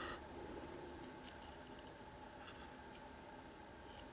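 A few faint clicks of small lock pins and a pick being handled while a padlock is taken apart, a small cluster about a second in and fainter ones later.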